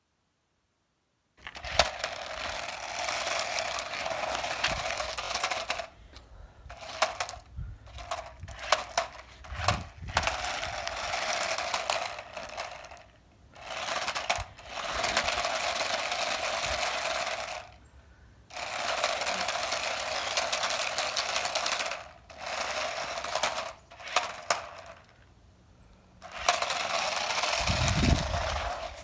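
Small toy RC car's electric motor whining and its wheels rattling over concrete, in runs of two to four seconds that stop and start again as the throttle is worked.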